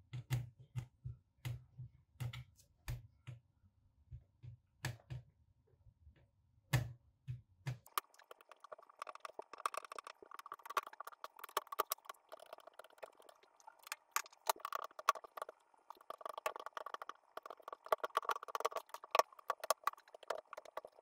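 Hand tools clicking and scraping on a laptop's plastic top case and metal keyboard shield as the shield is pried loose. Sharp separate clicks at first, then from about eight seconds in a continuous scraping with many small clicks in it.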